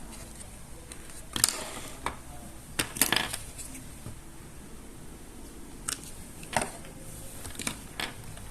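Small hard plastic toy pieces being handled during unboxing: about eight short clicks and clatters, with the loudest two about a second and a half and three seconds in.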